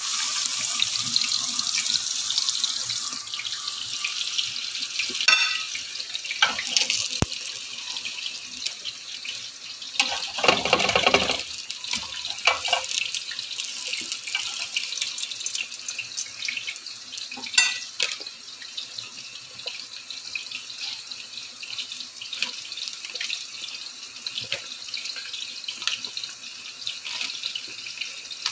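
Hot oil sizzling steadily as potato fries deep-fry in a pan, with breaded cutlets frying beside them. The hiss is strongest near the start, with a few sharp knocks of cookware and a louder spell about ten seconds in.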